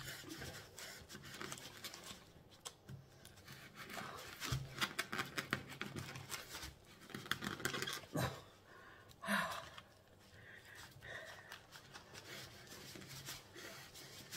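Kitchen knife sawing back and forth through a hard compressed coconut-coir brick, a scratchy rasp at each stroke, with a plastic bag crinkling under it. One louder sharp knock about nine seconds in.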